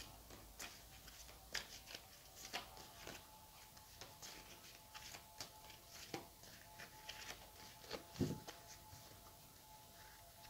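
A deck of tarot cards shuffled and handled by hand: faint, irregular clicks and soft rustles of the cards, with a slightly louder soft thump about eight seconds in.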